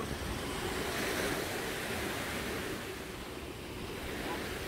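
Sea surf washing onto a sandy beach, a wave swelling about a second in and then easing, with some wind on the microphone.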